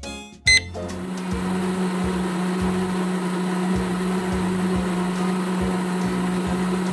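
A short electronic beep about half a second in, then an electric kitchen appliance starts and runs with a steady hum.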